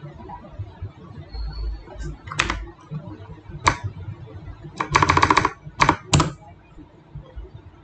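Computer keyboard keys clicking: a few separate keystrokes, with a quick run of clicks about five seconds in.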